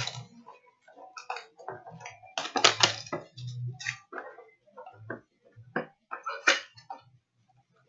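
Hands opening and handling a trading card pack or box: uneven bursts of crinkling, rustling and clicking, loudest about two and a half seconds in.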